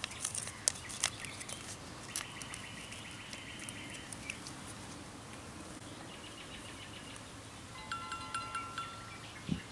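Small birds singing: a fast, buzzy trill about two seconds in, a fainter trill later, then a few clear whistled notes near the end. Crackles of a plastic blister packet being handled in the first couple of seconds, and a short low thump just before the end.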